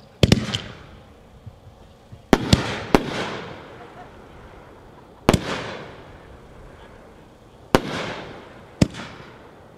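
Phantom 'Heavy Heavy Fuel' 12-shot fireworks cake firing shell after shell. There are sharp bangs from launches and aerial breaks every one to three seconds, each trailing off in a fading rumble.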